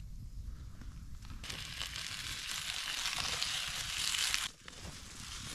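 Sliced potatoes frying in a pan set on campfire embers: a steady sizzle with small crackles that sets in about a second and a half in. It breaks off abruptly near the end and starts again.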